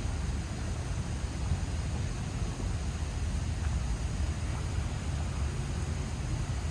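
Steady low outdoor rumble with no distinct events: background ambience.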